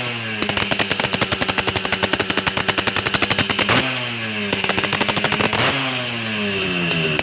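Modified Yamaha RX two-stroke motorcycle engine being revved, its exhaust firing in a rapid crackle with a crisp, ringing note. The revs hold for the first few seconds, then fall away about four seconds in, and a second rev falls away again near the end.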